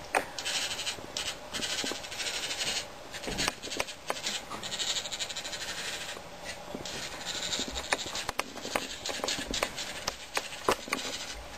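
LEGO Mindstorms NXT servo motor whirring through its gears in irregular short runs, starting and stopping as it pans the camera mount, with scattered clicks.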